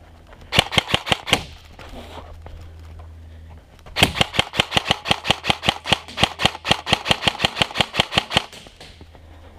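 Airsoft rifle firing, a Krytac LVOA-style electric gun: a short string of about eight quick shots, then, after a pause of about two and a half seconds, a long run of some thirty shots at about seven a second.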